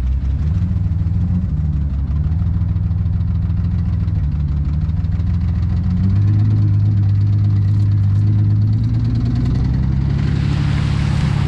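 BMW E38's V12 engine running as the car drives slowly, picking up a little about halfway, with a knock that the owners put down to a connecting rod bent when the engine took in water. A splashing hiss rises near the end as the tyres reach the puddle.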